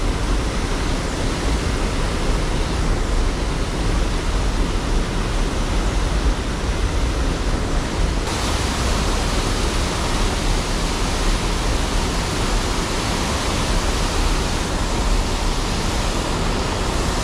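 Small waterfall pouring over layered rock ledges into the water, a steady rush of splashing water that turns brighter and hissier about eight seconds in.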